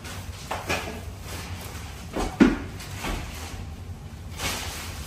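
A few short knocks and clatters from kitchen cupboards being worked in during cleaning, the loudest about two and a half seconds in.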